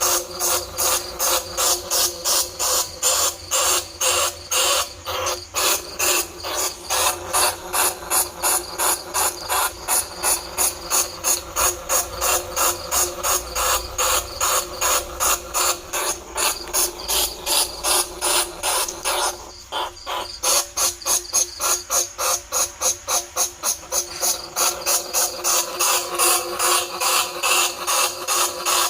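Bandicoot rat lure call: a long train of sharp, raspy squeaks about four a second, breaking off briefly about two-thirds through. It is played to draw bandicoot rats and field rats to traps.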